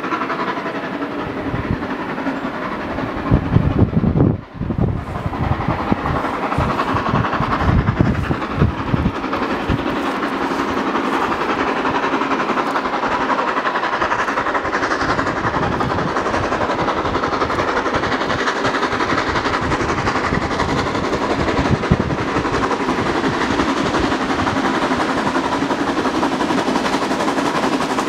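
Harzer Schmalspurbahn narrow-gauge steam locomotive working uphill toward the Brocken, its exhaust a rapid, continuous chuffing that grows a little louder as it approaches. Heavy low rumbles come and go in the first third.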